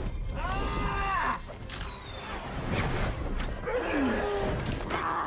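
Film soundtrack: several short pitched cries that rise and fall, over a steady low rumble.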